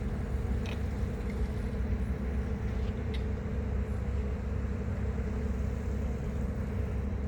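Ferry's engine running steadily: a constant low hum with a steady tone above it, and a few faint ticks.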